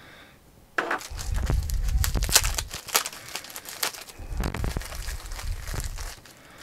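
Plastic packaging bag crinkling and rustling as it is handled and opened, in irregular bursts after about a second, with a few dull knocks of handling.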